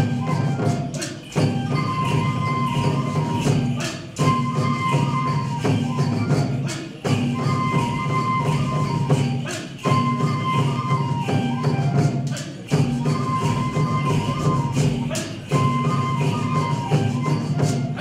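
Japanese folk dance music accompanying a horse dance: drumming and jingling percussion under a high stepping melody. It runs in a short phrase that repeats about every three seconds.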